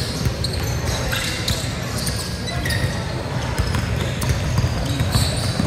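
Gym sound during a basketball game: a basketball bouncing on the court amid a steady din of scattered thuds and distant voices.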